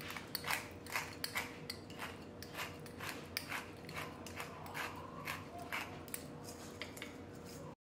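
Pepper grinder being twisted by hand: a steady series of short grinding clicks, about three a second.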